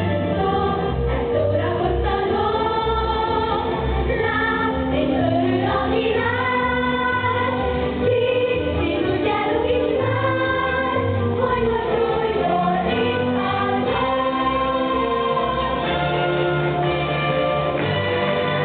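A song sung by a group of voices over a steady beat.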